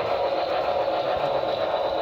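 Model train running on the layout track: a steady mechanical whirring and rolling noise from the model steam locomotive and its freight cars.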